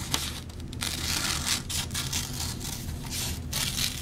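Scissors cutting a circle out of a sheet of paper: an irregular run of rustling snips, over a low steady hum.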